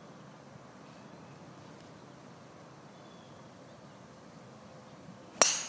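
A golf tee shot: the club face strikes the ball once near the end, a single sharp, ringing crack, over a faint outdoor background.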